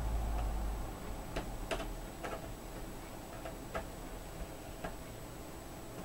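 Small screwdriver working the captive screws of a Toshiba Equium L40 laptop's plastic RAM cover: a scattering of light, irregular clicks of metal on screw and plastic as the screws are undone.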